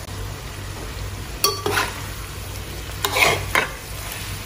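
Metal spoon stirring pork fry in a metal pot, with a few sharp scrapes against the pot about a second and a half in and again around three seconds in, over a low sizzle of frying.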